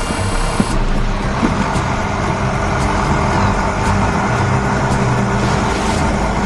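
Heavy construction vehicle engine running steadily, with a couple of short knocks in the first second and a half.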